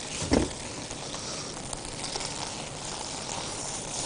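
A single low knock about a third of a second in, as the pot of kabsa rice is turned with a utensil to let the steam out, then a steady faint hiss of food cooking on the stove.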